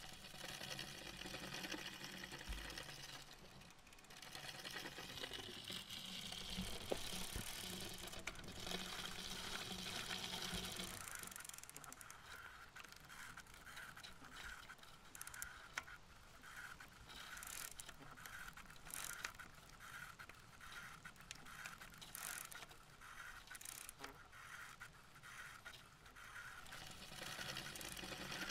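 Bicycle riding noise: tyres rolling on asphalt and the bike's chain and drivetrain rattling. A steady hum in the first part gives way after about eleven seconds to a regular mechanical ticking.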